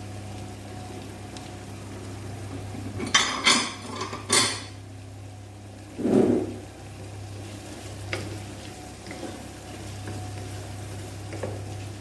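A cooking utensil scraping and clattering in a pot of fried rice: two short scrapes around three to four and a half seconds in, a louder knock about six seconds in, then a few light clicks, over a steady low hum.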